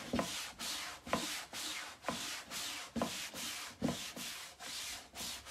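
A cloth is rubbed briskly back and forth over a waxed, chalk-painted wooden drawer, about two strokes a second, wiping off the excess clear wax. With the harder strokes the table rattles, giving a low knock about once a second.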